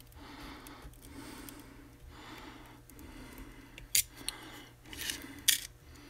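X-Acto blade scoring around the jacket of RG213 coax, cutting through to the copper shield braid: faint scraping, then a few sharp clicks and short scrapes in the last two seconds.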